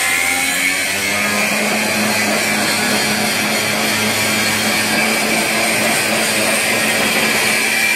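Handheld electric saw running steadily at a constant pitch as it cuts into a steel barrier box on a cargo container's door locking bars.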